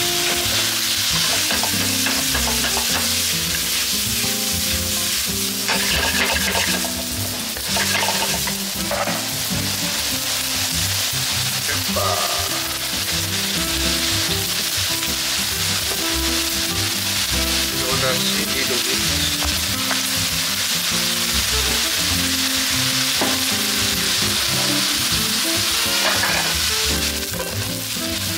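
Pork, shrimp, squid and vegetables sizzling steadily in a hot wok as they are stir-fried, with a few short scrapes and clinks of the chopsticks against the pan.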